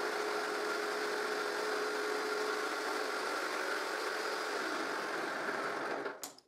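Table-mounted jigsaw running steadily as a crosscut is made through a piece of wood on a crosscut sled. It is switched off and stops about six seconds in.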